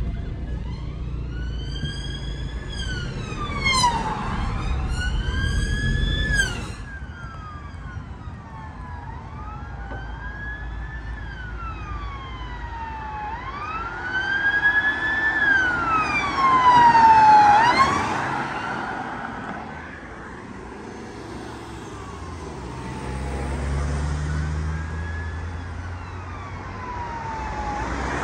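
Emergency-vehicle sirens on a wail, the pitch rising and falling about every two to three seconds, mixed with bursts of a faster sweeping yelp. They are loudest about seventeen seconds in, then fade into the distance. A car engine hums underneath for the first several seconds.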